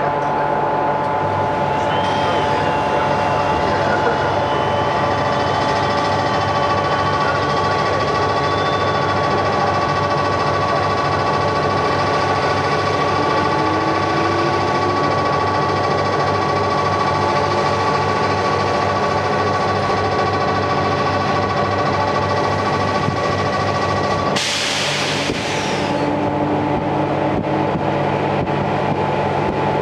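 Series 711 electric train running, heard from inside the carriage through an open window: a steady rumble of motors and wheels with several steady humming tones and a faint whine slowly rising in pitch. A short burst of hiss comes about 24 seconds in.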